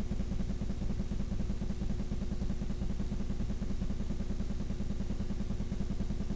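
An engine running steadily, its low hum carrying a fast, even pulse.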